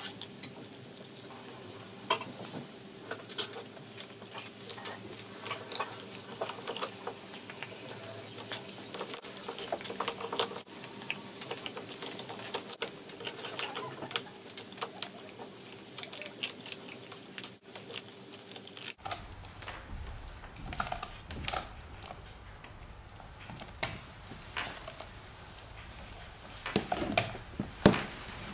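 A greyhound gnawing a raw meaty bone, with irregular clicks and cracks of teeth on bone.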